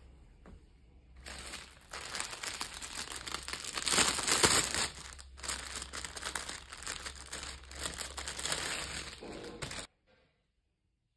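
Thin clear plastic garment bag crinkling as hands open it and take out a folded knit top, loudest about four seconds in; the sound cuts off suddenly near the end.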